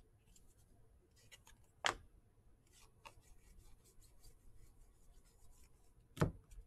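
Faint rubbing and sliding of cardboard football trading cards as a stack is flipped through by hand, card edges scraping against each other. Two louder taps stand out, about two seconds in and near the end.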